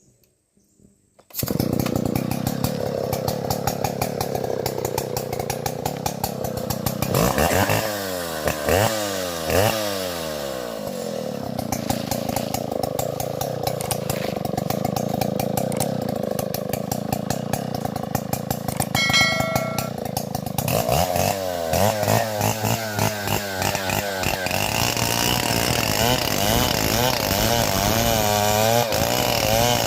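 Stihl 070 chainsaw's big single-cylinder two-stroke engine starting up after a moment of quiet and running, revved up and down repeatedly, with rising and falling pitch sweeps around a third of the way in and again about two-thirds through.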